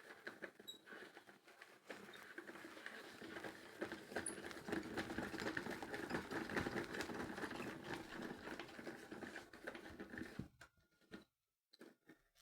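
Washing machine drum turning on worn bearings, a dense rattle of many small clicks that swells in the middle and stops about ten and a half seconds in, followed by a few faint knocks. The rattle is the sign of bad drum bearings.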